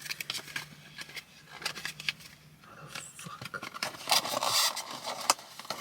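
Small package being worked open by hand: scattered clicks and scrapes, with a longer rustle about four seconds in.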